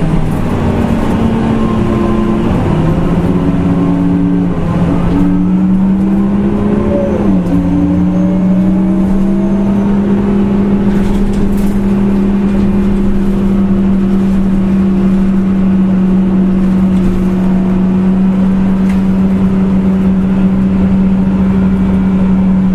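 Nissan Diesel KL-UA272KAM compressed-natural-gas city bus engine pulling away. Its pitch rises and drops at gear changes about 3 and 7 seconds in, then holds a steady drone as the bus cruises.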